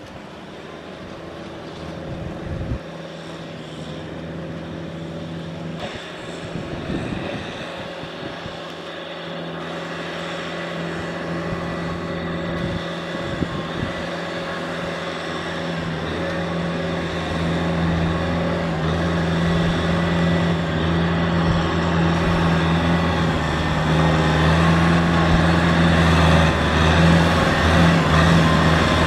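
Kubota M6040 tractor's diesel engine running steadily under load while hauling through mud, growing steadily louder as it comes closer.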